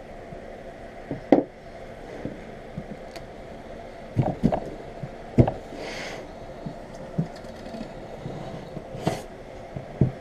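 Knocks and thuds from a large roll of transfer tape and PVC pipe parts being handled and set down on a wooden tabletop, with a short swish about six seconds in, over a steady background hum.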